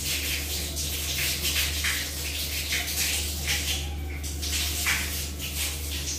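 Shower water running and splashing, rising and falling in irregular spurts as it hits the body and the tiled stall, over a steady low hum.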